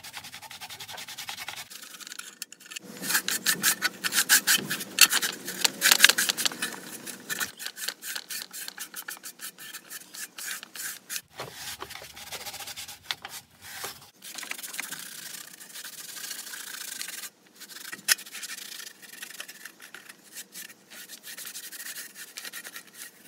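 Cloth rags scrubbing loosened rust off the wet, pitted steel plate of a WWI German infantry shield in quick back-and-forth strokes. The scrubbing is heaviest in the first several seconds, then lighter, with short pauses.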